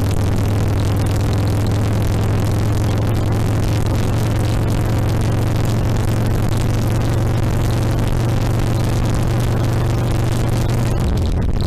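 2007 Harley-Davidson Sportster XL1200R's 1200 cc air-cooled V-twin running under way, a steady low engine note with rushing wind and road noise over it. The note drops briefly, and the rush thins, about eleven seconds in.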